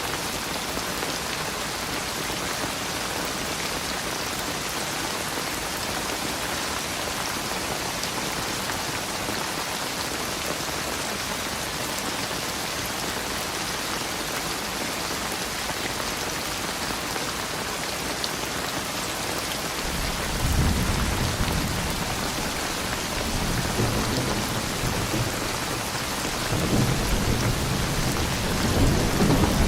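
Steady rain falling, an even hiss. About two-thirds of the way in, rolling thunder begins to rumble, comes back a few seconds later and grows louder near the end.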